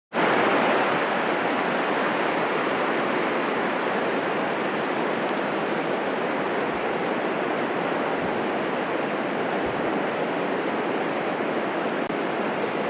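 River water rushing steadily close by, an even noise with no breaks.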